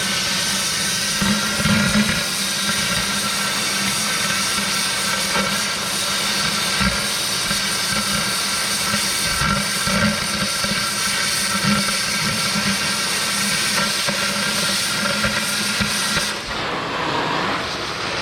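Oxy-fuel cutting torch hissing steadily as it cuts through hard-facing on a steel core barrel, over a steady machine hum. The hiss drops away briefly near the end.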